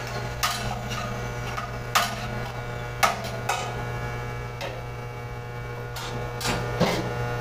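Steady electrical mains hum in the electrical room, with about half a dozen short metallic clicks and knocks as hand tools and parts are handled at an open electrical panel.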